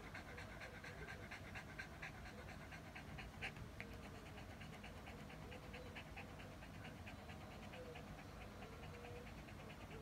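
A Shih Tzu panting quickly and evenly, about four or five breaths a second: the dog is hot and cooling down after a walk.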